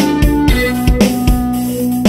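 Background music with a steady drum beat under held chords.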